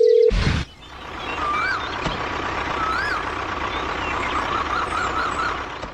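A loud steady beep tone that cuts off just after the start with a short burst of noise, then birds chirping over a steady background hiss: a few separate rising-and-falling chirps and a quick run of small chirps near the end.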